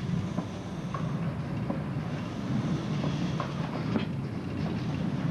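Small vintage steam train rolling past on rails: a steady low rumble with irregular clicks and knocks of the wheels running over the track.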